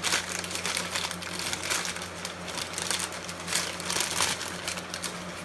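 Packing material crinkling and rustling as it is handled, in irregular crackly bursts, over a low steady hum.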